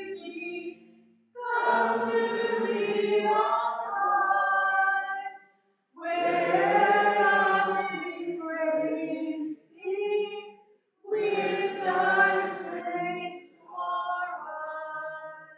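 Unaccompanied choir singing a slow hymn in phrases of two to four seconds, with short breaks between them. The last phrase dies away at the end.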